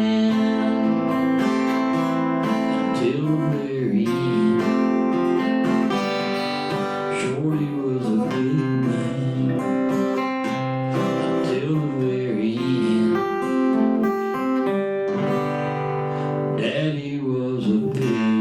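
Acoustic guitar strummed and picked, with sustained chords ringing and a few notes bending in pitch.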